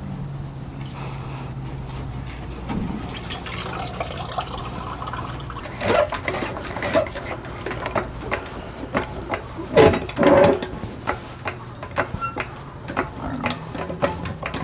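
Gasoline running out of the disconnected fuel-tank filler tube into a plastic tub. Then a floor jack is pumped up under the steel fuel tank: a run of clicks and clunks about twice a second, with a few louder knocks.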